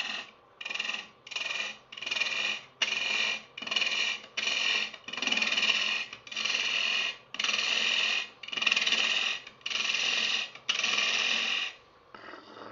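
Gouge cutting a spinning ash blank on a wood lathe in about a dozen short passes, each a hiss of shavings lasting under a second, the later passes a little longer. The lathe's faint steady hum sounds in the gaps between cuts.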